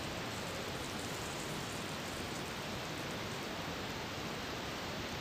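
Potato chunks sizzling steadily as they fry in hot refined oil in a steel kadai.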